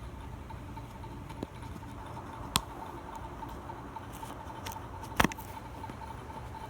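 A few sharp clicks and taps from handling a plastic DVD case while a sticker is peeled off it, the loudest a double click near the end, over a steady faint hum.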